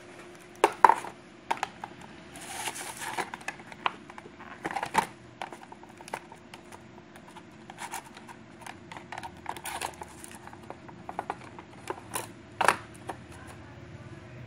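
An action camera and its packaging being handled while it is taken out of the box: a string of sharp clicks and knocks, with a brief plastic rustle about two seconds in.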